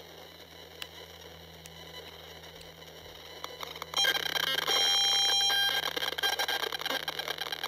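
Audio output of a Safe and Sound Pro II radio-frequency meter reacting to wireless earbuds in their opened charging case. After a faint steady hum, it bursts out about four seconds in with a loud steady beeping tone lasting about a second, then a rapid buzzing chatter of clicks. This signals a very high radio-frequency reading.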